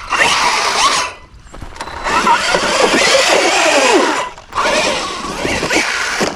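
Losi Super Rock Rey RC truck's brushless electric motor and drivetrain whining in three bursts of throttle, its pitch rising and falling, with the tyres scrabbling over dirt and rock. There are short let-offs about a second in and near four seconds.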